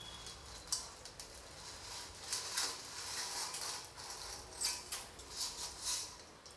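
Dry noodle strands rustling against each other and the steel pot as a hand pushes a bundle down into hot water: a series of short, quiet rustles, thickest in the middle and again near the end.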